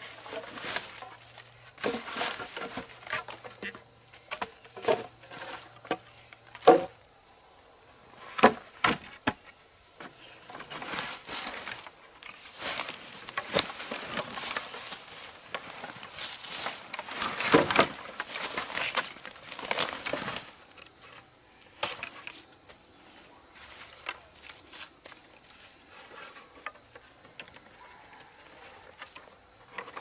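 Cut wooden poles knocking sharply against each other, then scraping and rustling through leaves as they are gathered and bound with a cord. A thin, steady, high-pitched insect drone runs underneath.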